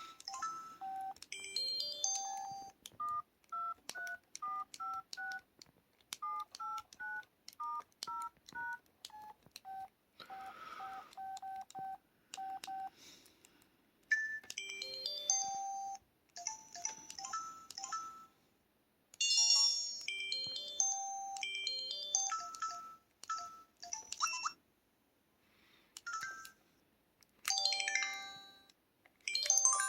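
Samsung SPH-S1000 mobile phone's built-in effect sounds played one after another: short electronic beeps, first single tones about two a second, then quick runs of chime-like blips stepping up and down in pitch, with short pauses between them.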